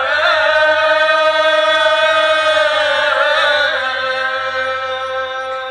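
A man chanting in long held notes that waver in places, over a steady sustained tone; the chant is strongest for about four seconds, then eases off.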